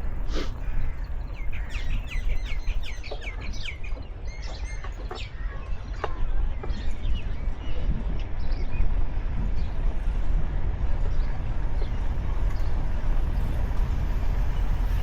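Small birds chirping: a quick run of short chirps, then scattered single calls that die away about halfway through. A steady low rumble runs underneath.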